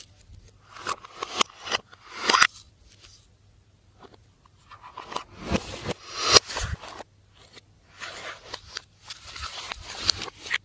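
Slime being pressed and worked by hand, giving bursts of sticky crackling and squelching with a short pause about three seconds in.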